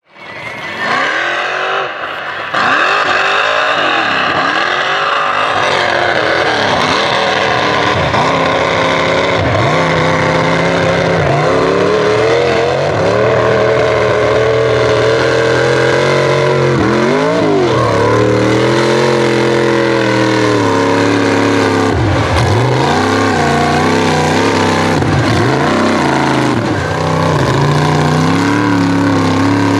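GMC mega mud truck's engine revving hard through a mud pit, its pitch swinging up and down again and again as the throttle is worked, with mud and water thrown up by the tires. The sound fades in over the first second.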